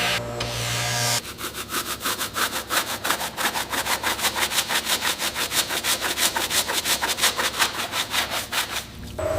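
Quick back-and-forth abrasive strokes by hand, about five a second, steady and even, like scrubbing or sanding a surface; music cuts off about a second in.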